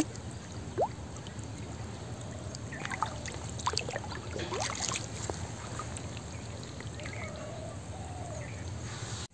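Shallow muddy water trickling and splashing as hands work a bamboo fish trap into a gap in a paddy-field bund, with scattered small splashes and knocks clustered in the middle.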